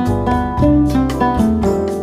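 Background music: plucked guitar and piano playing a melody over a steady beat.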